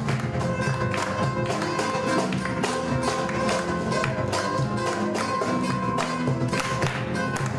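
Live Peruvian tondero music: acoustic guitars playing over a steady, sharply struck hand-percussion beat.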